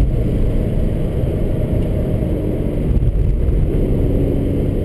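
Subaru BRZ heard from inside the cabin while driven at speed: the 2.0-litre flat-four engine's steady drone under a heavy, continuous low rumble of road and wind noise.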